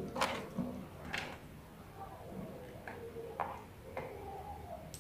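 A few faint, separate clicks and taps of small plastic parts: a small button-cell battery being fitted into the twist-open battery compartment of a lavalier microphone's power module.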